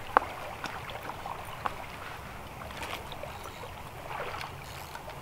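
Small clicks and handling noises as a baited fishing hook and fermented rice bran bait are worked by hand, over a faint steady outdoor hiss. One sharp click comes just after the start and another about a second and a half in.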